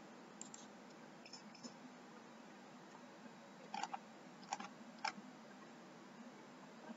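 Faint computer mouse clicks: a few soft scattered clicks, then three sharper ones close together around the middle, over quiet room tone.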